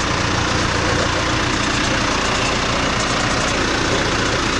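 John Deere 310C backhoe's diesel engine idling steadily.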